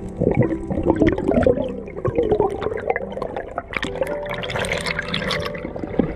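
Water bubbling and swishing around an underwater action camera on a dive, a busy crackling churn that grows sharper and brighter about four seconds in as the camera nears the surface.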